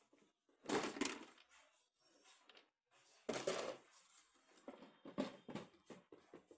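Handling clunks and rustles as a scooter's seat is unlatched, lifted off and laid down, with the loudest knocks about a second in and again just past three seconds.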